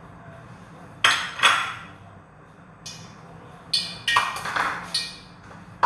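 Plates and kitchen utensils clinking and knocking on a kitchen counter: a few sharp clatters about a second in, and a quicker run of them from about three to five seconds in.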